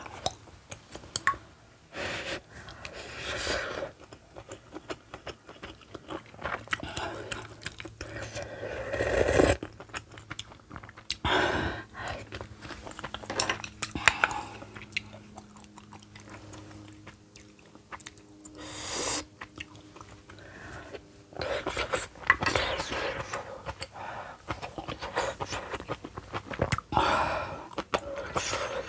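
Close-miked mukbang eating: irregular wet chewing of mouthfuls of kimchi stew with pork belly, tofu, sujebi dough flakes and black rice. Wooden chopsticks and a spoon click against the stainless pan and the rice bowl now and then.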